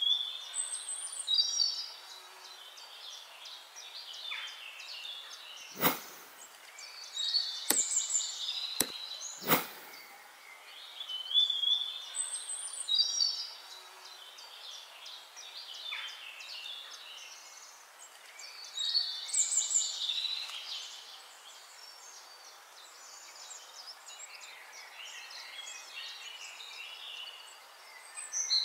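Birdsong: a songbird repeating short groups of high chirping notes every several seconds, with a few sharp clicks between about six and ten seconds in.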